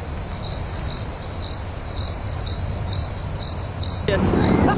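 Cricket chirping sound effect, the comedic 'crickets' gag for an awkward silence: a steady high trill pulsing about three times a second that starts and stops abruptly. A low wind rumble runs beneath it.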